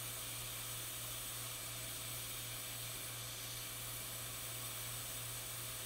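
Hot air rework station blowing a steady hiss with a low hum underneath, heating a CD3217 chip on a MacBook logic board to reflow its solder joints.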